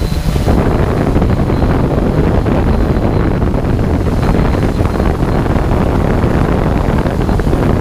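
Loud, steady wind rumble buffeting the microphone of an aerial drone's onboard camera in flight, a dense low noise without any clear tone.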